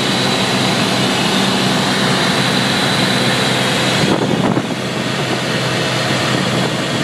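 Light single-engine aircraft's engine and propeller running steadily, heard inside the cockpit as a low hum under a dense hiss, dipping slightly for a moment about four seconds in.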